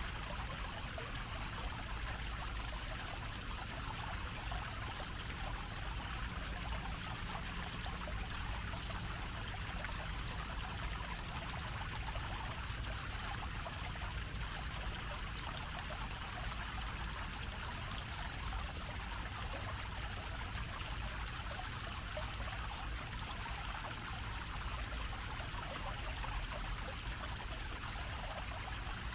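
Fountain water splashing steadily, a low dome-shaped jet welling up and falling back onto the metal grate over its basin, with a steady low rumble underneath.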